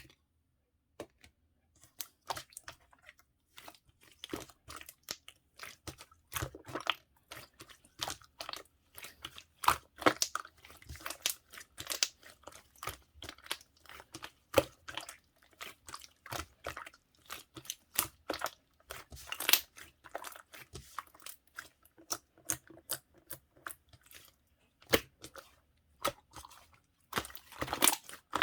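Slime being squeezed, stretched and pressed by hand, giving a dense, irregular stream of sticky clicks, pops and crackles.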